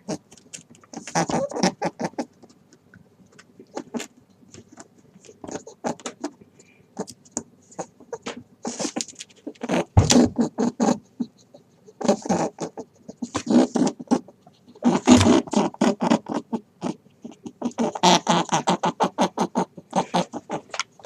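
Rabbit sounds: repeated bursts of rapid, fine clicking and patter, each lasting a second or two, several times over.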